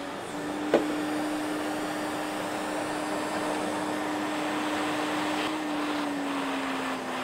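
Vacuum cleaner running steadily, its nozzle held at a steel van floor to pick up sanding dust from hand-sanded filler blobs. A single sharp click comes about a second in, and the motor's pitch sags slightly near the end.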